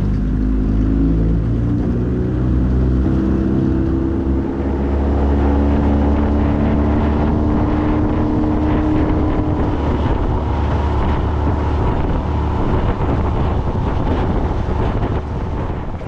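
Outboard motor running steadily, driving a small aluminium boat along, with water rush and wind on the microphone. The engine's pitch rises a little at the start and then holds.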